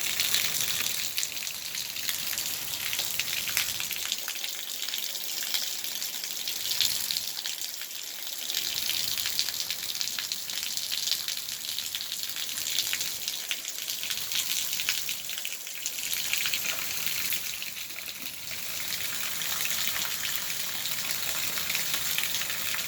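Heavy rain shower falling steadily, a dense patter and hiss of drops with slight swells in strength.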